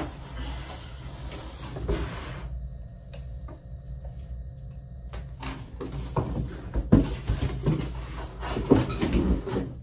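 Rustling of packaging, then a quieter stretch, then a run of knocks and clatter from about five seconds in as the plastic and metal parts of a magnifying lamp are handled and unpacked.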